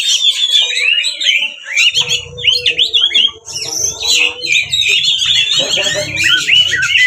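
Oriental magpie-robin singing loudly and without pause in aggressive territorial song: a fast, varied run of whistled phrases, slurs and harsh chatter. A low rumble sits under the song from about two seconds in.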